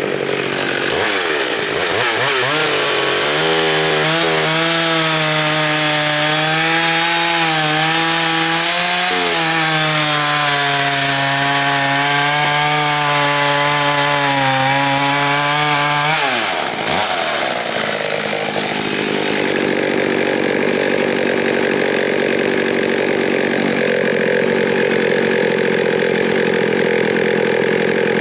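Pioneer P60 two-stroke chainsaw cutting through a large log under load, its engine note holding fairly steady with slight wavers. A little past halfway it comes out of the cut, the pitch drops, and the saw runs on at idle.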